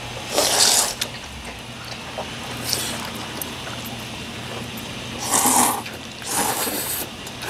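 A person slurping noodles in four short, wet bursts, the last two close together near the end.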